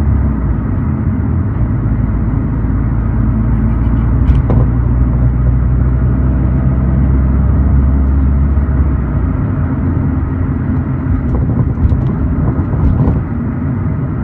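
Steady road and drivetrain rumble of a Subaru BRZ on the move, with a sharp click about four seconds in and a few short knocks and rattles from the trunk around eleven to thirteen seconds in. These are an abnormal noise that has developed in the trunk, cause not yet known.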